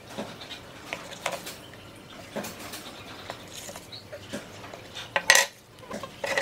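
Scattered light clicks and clinks of a steel ruler being handled against a loudspeaker's voice-coil and spider assembly, with a louder clatter a little over five seconds in as the ruler is laid down on the wooden workbench.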